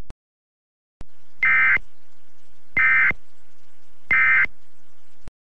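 Emergency Alert System end-of-message signal: three short, identical bursts of SAME digital data, each a harsh buzzing screech under half a second long, about a second apart, marking the end of the alert broadcast.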